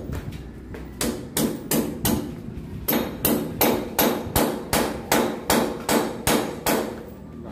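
Hammer striking a hand-held metal piece against a concrete beam, about three blows a second, each with a short metallic ring. The first blows are lighter, and they grow heavier about three seconds in.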